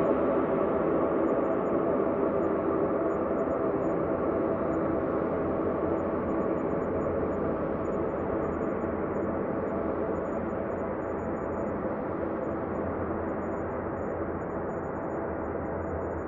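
Synthesized ambient space drone: a steady, dense hum of many layered sustained tones over a soft noise bed, slowly getting quieter and duller.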